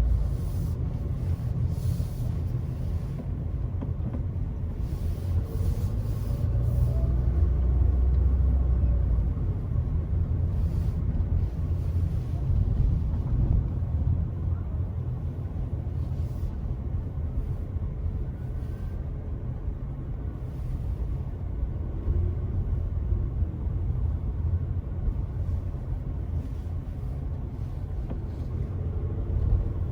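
Car driving along at a steady pace: a continuous low rumble of tyres and engine, with a few faint shifts in engine pitch.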